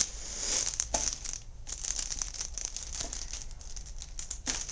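Clear plastic bag crinkling and rustling in irregular crackles as hands handle the packaging.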